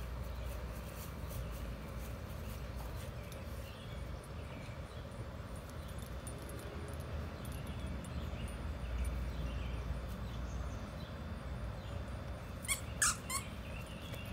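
A dog's squeaky toy squeaks three times in quick succession near the end as the dog mouths it. Before that, only a steady low outdoor rumble with faint high chirps.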